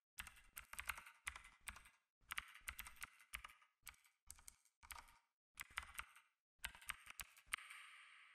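Faint typing: quick runs of key clicks with short pauses between them, and a last stroke near the end that leaves a ring fading away.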